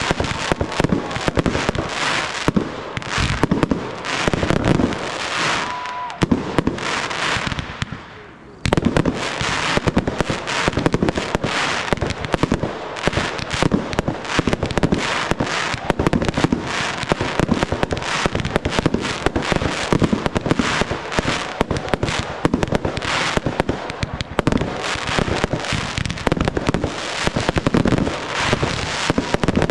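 Fireworks display: a dense, continuous barrage of bangs and crackling from aerial shells and cakes firing in quick succession. The barrage thins out briefly about eight seconds in, then comes back abruptly at full strength.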